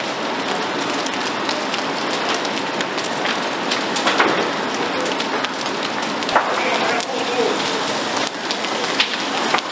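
Fully involved apartment-building roof fire burning: a steady rushing with dense crackling and scattered sharp pops.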